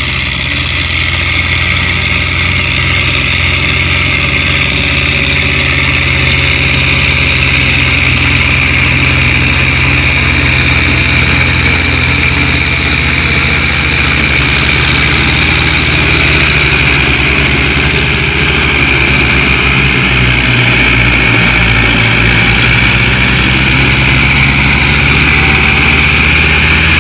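Two diesel tractors, one a Belarus 510, running steadily under heavy load as they pull a loaded trolley in tandem, their exhaust blowing black smoke.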